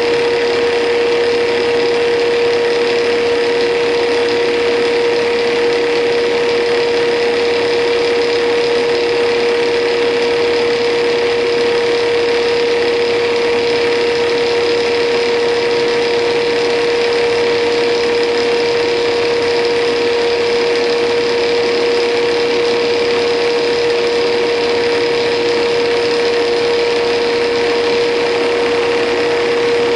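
Intorex CI 1500 hydraulic copy lathe turning a wooden baseball bat blank, its cutter tracking slowly along the spinning billet: a steady machine whine with an even hiss of cutting over it, unbroken throughout.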